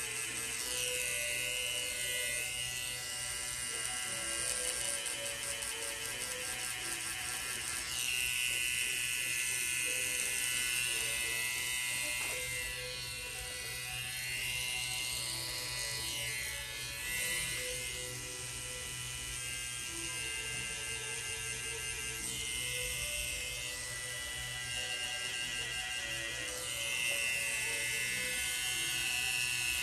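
Pen-style rotary tattoo machine running with a steady electric whir as the needle works on skin.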